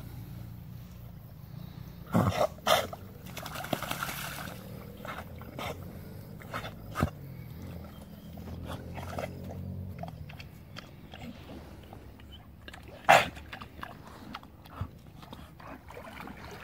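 Dogs swimming, with sounds from the dogs themselves: two short loud sounds about two seconds in and one more about thirteen seconds in, over a low steady background.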